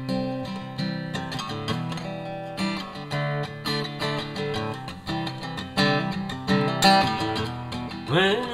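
Acoustic guitar strummed and picked in a steady rhythm, the instrumental opening of a song. A singing voice comes in near the end.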